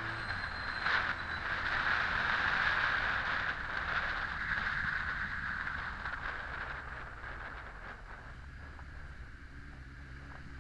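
Wind rushing past the camera microphone on a Honda X4 motorcycle ridden in traffic, with the bike's inline-four engine running steadily underneath. The wind noise fades over the second half as the bike slows.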